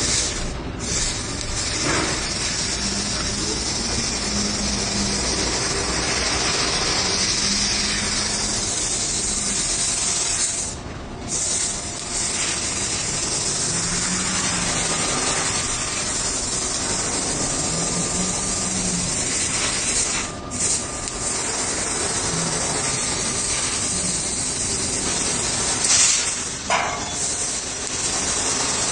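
CNC plasma cutter torch cutting: a steady, loud hiss of the plasma arc and its air jet, which drops out briefly about eleven seconds in and again around twenty seconds.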